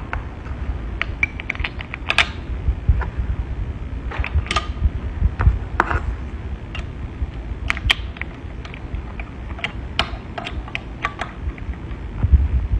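Letterpress print shop equipment at work: irregular sharp clicks and knocks over a steady low rumble, with no even rhythm.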